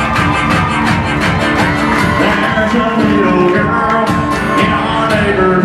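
Live country-rock instrumental: harmonica bending notes over guitar and a steady, fast drum beat, all played by one man at once.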